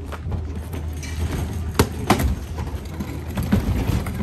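A steady low hum, with a few sharp knocks: two close together about two seconds in and another a little later.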